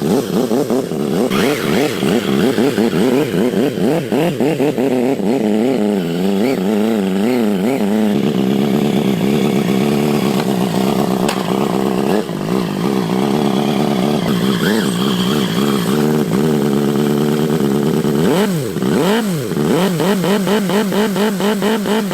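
A small engine running loudly with a buzzing note whose pitch wavers up and down, rising and falling sharply a few times near the end.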